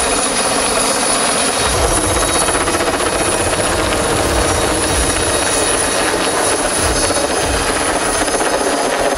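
Helicopter flying overhead with a tower section slung on a long line beneath it, its rotor and engine running steadily with uneven low thudding from the rotor.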